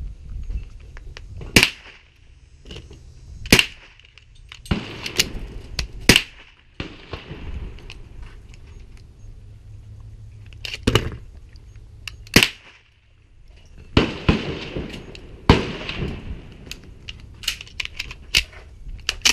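Gunshots on a pistol range: about a dozen sharp single reports at uneven intervals, some in quick pairs, each with a brief echo.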